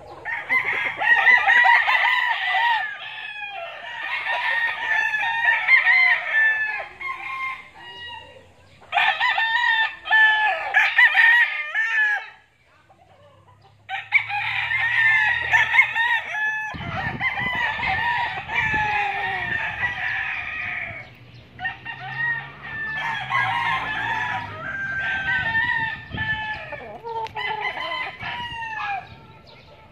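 Several gamecocks crowing over one another in repeated long crows, with a brief pause about halfway through.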